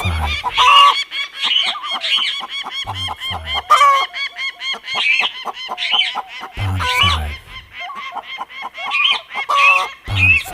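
Cartoon bird sound effects: many birds calling over one another in a dense chorus of short, repeated honking calls, with a pair of low thumps every three to four seconds.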